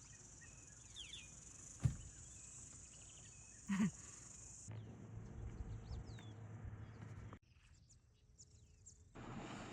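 Faint outdoor ambience of a steady high insect drone with small bird chirps over it. A short knock comes about two seconds in and a brief call near four seconds. The background changes abruptly several times, going nearly quiet for a couple of seconds near the end.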